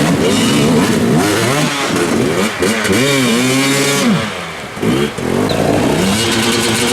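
Enduro motorcycle engine revving, its pitch rising and falling again and again as the throttle is worked, easing off for a moment about four seconds in before picking up again.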